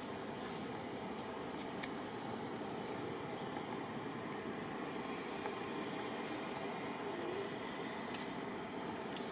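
Steady outdoor background noise: an even hiss with a constant high, thin whine over it, and a single faint click about two seconds in.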